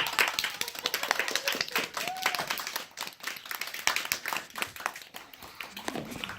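A small group clapping, with many separate claps heard, thinning out toward the end.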